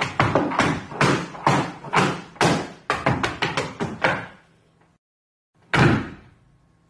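Tap shoes striking a stage floor in a fast unaccompanied rhythm of sharp taps that stops about four seconds in; after a short pause, one last loud, hard strike rings out briefly.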